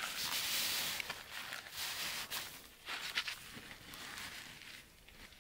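Nylon tent fabric rustling and straps being handled as a tailgate tent is fastened to a car's wheel. There is a loud rustle in the first second, then several shorter rustles.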